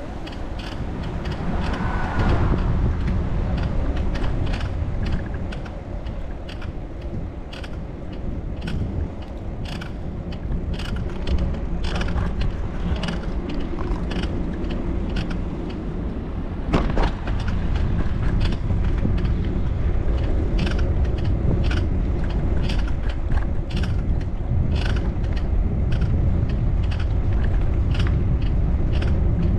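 Bicycle being ridden: sharp mechanical clicks and creaks from the bike, about one or two a second, over a steady low rumble of wind and rolling tyres. One louder click comes about seventeen seconds in.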